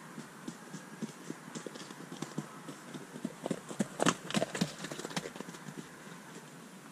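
Hoofbeats of a ridden horse passing close by: a run of irregular hoof strikes that grows louder to a peak about four seconds in, then fades as the horse moves away.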